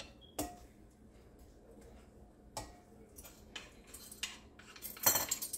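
Wooden spoon stirring bread dough in a glass mixing bowl, knocking and clinking against the glass: scattered light knocks, with a louder cluster near the end.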